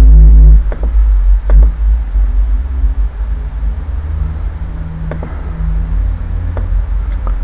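Several sharp computer mouse clicks, spread unevenly, over a steady low rumble.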